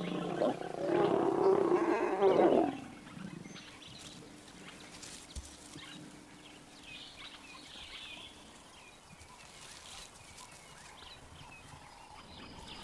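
Lions snarling during mating: a loud, harsh snarl lasting about the first three seconds, then it stops. A few faint high chirps follow over quiet background.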